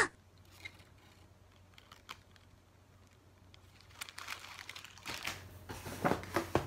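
Plastic and foil food packets rustling and crinkling as they are handled, starting about four seconds in after a near-quiet stretch with a couple of faint clicks.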